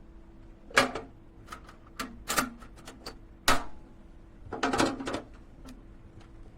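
Sharp metal clacks and knocks from handling a small two-drawer metal tool box: a handful of separate hits, then a short rattling clatter about two-thirds of the way through.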